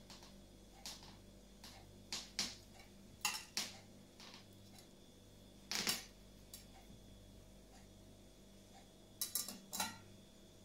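A metal knife clinking and knocking against a ceramic serving platter as grilled eggplant rolls are set down on it: scattered single knocks, the loudest about six seconds in, and a quick run of several near the end.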